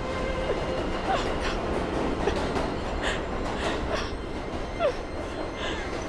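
New York City subway train pulling away from the platform: a steady rumble, with wheels clattering over the rail joints and brief squeals from the wheels on the rails, and one louder knock near the end.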